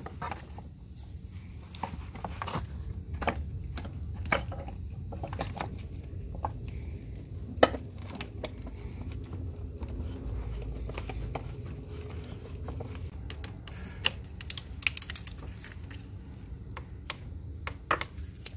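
Scattered light clicks and taps of hand tools and parts being handled during an oil change, irregular rather than rhythmic, over a low steady rumble, with one sharper click about halfway through.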